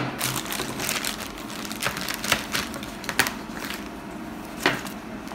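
Packaging being handled: scattered sharp clicks and knocks over a low crackling rustle.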